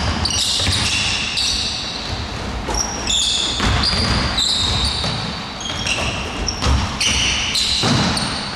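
Basketball shoes squeaking again and again on a hardwood gym floor, short high squeals of varying pitch, with a basketball being dribbled and the players' movement echoing in a large hall.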